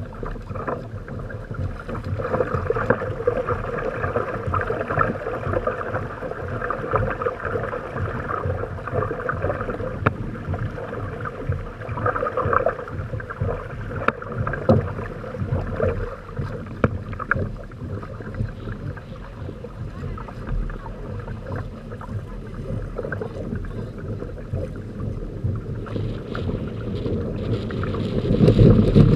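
Water splashing and gurgling along the hulls of a Hobie Tandem Island trimaran under sail, in an uneven run of small slaps, growing louder near the end.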